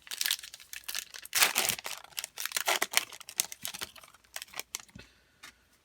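Foil trading-card booster-pack wrapper crinkling as it is handled and opened: a run of rustling, crackling noise, loudest in the middle and dying away about a second before the end.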